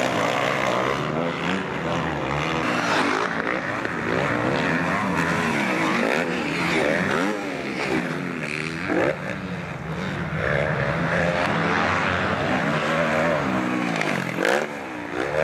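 Several motocross bikes' engines revving hard, their pitch repeatedly rising and falling and overlapping as riders work the throttle and shift through the corners and jumps.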